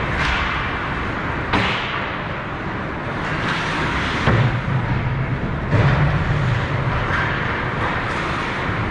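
Ice hockey play in a rink: two sharp cracks in the first two seconds, then two heavier thuds, each trailing a low boom for about a second, over steady rink noise.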